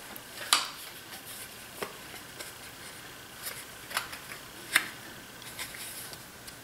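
About half a dozen light clicks and taps from a smartphone in a case being handled against a workbench, the sharpest about half a second in and just before five seconds.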